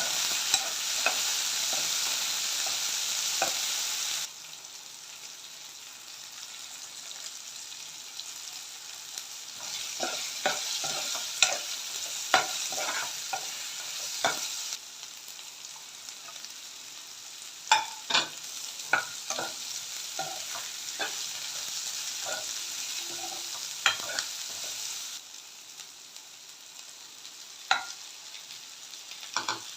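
Food frying in oil in a pan for upma, with a steady sizzle, while a spatula stirs and scrapes, giving frequent sharp clicks and taps against the pan. The sizzle drops abruptly about four seconds in and changes level twice more.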